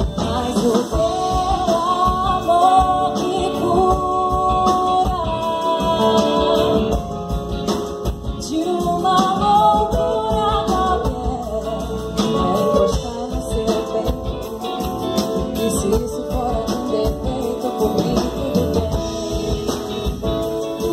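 Live pop band playing, with a singer holding long, wavering sung notes over bass guitar and other instruments.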